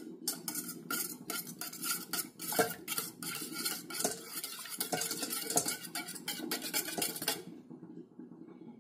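Wire whisk beating milk and egg into a French toast batter in a stainless steel bowl, its wires clicking rapidly against the metal. The whisking stops about seven seconds in.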